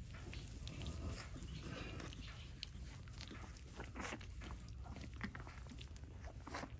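Newborn kunekune piglets suckling at a sow's teats: scattered small smacking and snuffling noises with a few brief squeaks, over a low rumble.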